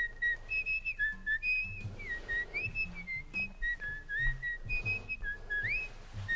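Intro music: a whistled melody, its notes sliding up and down, over a changing bass line.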